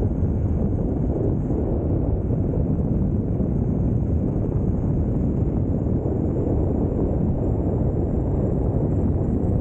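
Steady wind buffeting on the microphone, mixed with the rumble of the electric mountain board's tyres rolling on asphalt at speed.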